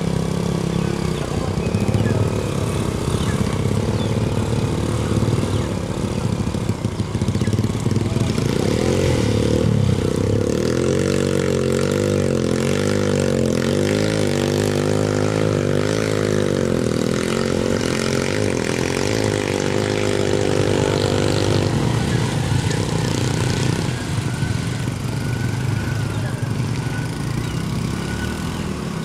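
Small motorcycle engines and a truck engine running, with one engine revving up and down, its pitch wavering, through the middle as the bikes labour in deep mud.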